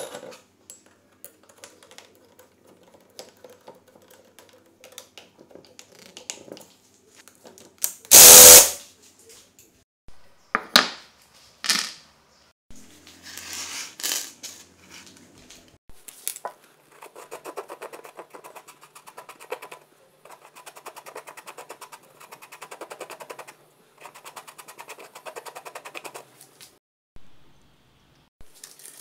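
Hand work on metal parts: scattered small knocks and clicks, a loud short hiss about eight seconds in, then a long run of rapid, even ratchet-like clicking.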